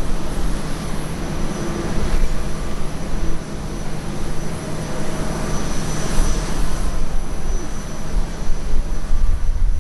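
Boeing 787-9 jet engines running at taxi power as the airliner rolls past: a steady low rumble with a thin, steady high tone over it.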